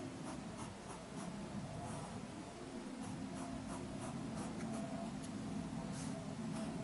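Pen drawing on paper: the nib scratching in short, quick strokes, several a second, over a low steady hum.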